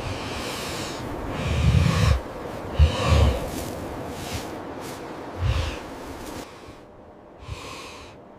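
A bear's heavy breathing and snorting: three deep huffs, the second a double snort, over a steady wind hiss that fades near the end.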